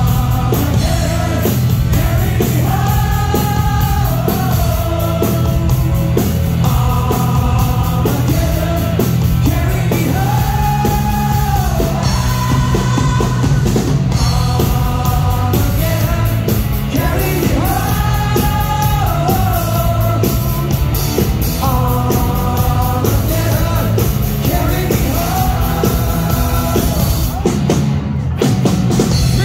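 Live rock band playing loud: a male lead singer holding long sung notes every few seconds over distorted electric guitar, bass and a drum kit.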